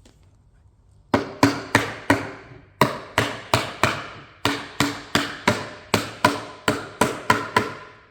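Rubber mallet knocking a phenolic plywood side panel down onto the shelf base's tenons: a run of about twenty sharp knocks, two to three a second, starting about a second in.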